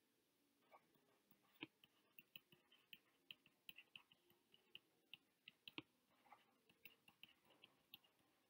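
Faint, irregular ticks and taps of a stylus tip on a tablet's glass screen during handwriting, several a second.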